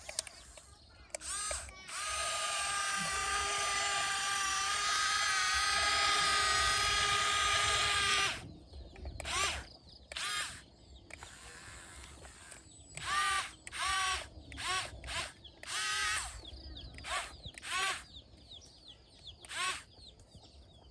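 Electric motor whine of a radio-controlled excavator: one steady whine for about six seconds, then a string of short whines as it is run in brief bursts.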